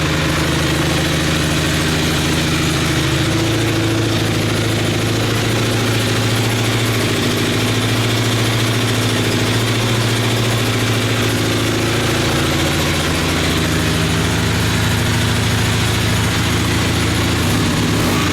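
1978 Honda CB400T's air-cooled parallel-twin engine idling steadily through a Motad two-into-one exhaust, freshly rebuilt with new gaskets and re-cleaned carburettors. The idle speed shifts slightly a few times.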